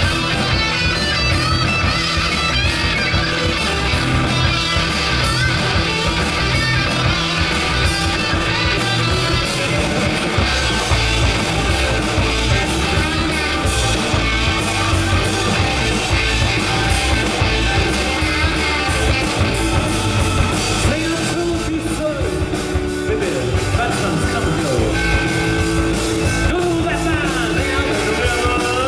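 Rock music with guitars and a steady beat of drums and bass, and a singing voice at times.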